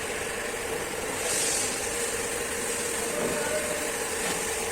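Aston Martin V12 engine idling steadily, with an even hum.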